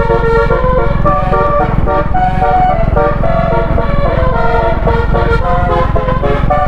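Bus 'telolet basuri' melody horn playing a quick tune of held, stepped notes, several sounding together, over a steady low engine rumble.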